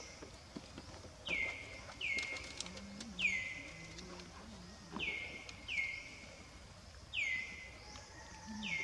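A bird calling repeatedly, each call a quick chirp that drops sharply in pitch, mostly in pairs a second or two apart. A steady high drone runs underneath.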